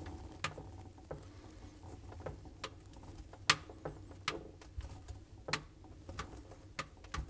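Scattered light clicks and ticks, irregularly spaced, as stripped wire ends are handled and twisted together by hand; the sharpest click comes about halfway through.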